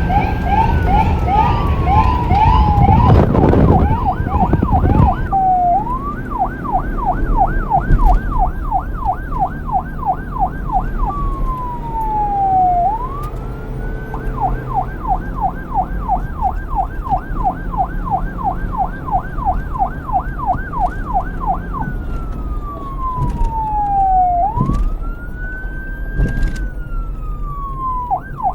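Police car siren cycling between a slow wail, gliding down and back up, and a fast yelp of about three to four sweeps a second. A loud low rumble joins it a few seconds in.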